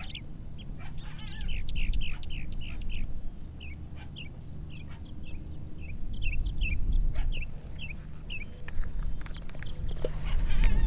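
Animal calls: a quick run of short, high-pitched falling chirps, several a second, that stop about eight seconds in, over a low rumble.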